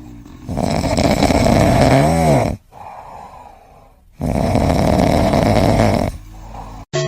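Loud snoring: two long, rasping snores about two seconds apart with quieter breaths between, the first ending in a whistle that rises and falls in pitch. The sound cuts off abruptly just before the end.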